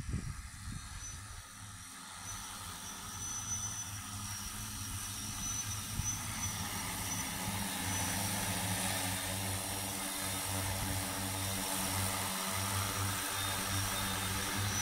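6-litre crop-spraying multirotor drone's propellers humming steadily, growing louder over the first several seconds as it flies back in and descends on return-to-home, then holding level.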